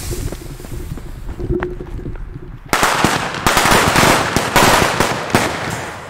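Friction-head firecrackers with 2 g of black powder. A lit one burns quietly at first, then about three seconds in a loud, rapid run of sharp cracks and bangs sets off and carries on for a few seconds.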